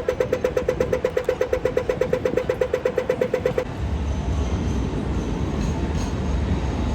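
An Australian pedestrian crossing signal ticking rapidly, about eight pitched beeps a second, which marks the walk phase. It stops abruptly about three and a half seconds in, leaving a steady low rumble of street traffic.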